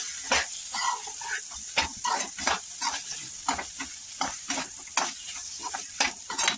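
A metal spatula scrapes and taps against a kadhai as boiled potato pieces are stirred and sautéed in hot oil, about two strokes a second, over a steady sizzle.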